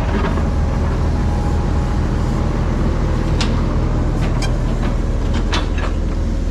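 Diesel engine of heavy earthmoving equipment running steadily under work, with a few sharp metallic clanks about halfway through.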